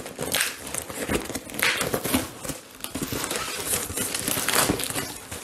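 Brown packing tape being pulled and peeled off a cardboard box, the cardboard crackling and scraping under the hands: a continuous run of irregular crackles, rustles and sharp clicks.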